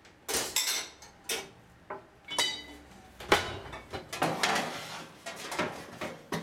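Kitchen pots, pans and plastic bowls clattering as they are put away into a drawer and cupboard. It is a string of knocks and clanks, the loudest about three seconds in, with a short metallic ring about two and a half seconds in.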